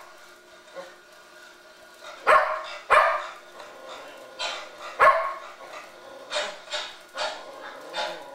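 Shetland sheepdog barking at a television: short, sharp single barks that begin about two seconds in and come irregularly, roughly every half second to a second, until the end.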